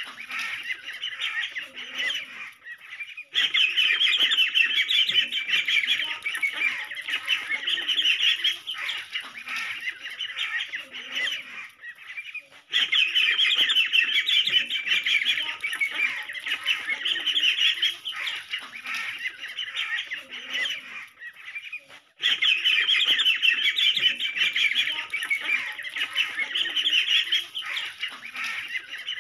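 A flock of ducklings peeping continuously, many short high calls overlapping. The chorus dips and then jumps back to full loudness abruptly three times, about every nine seconds.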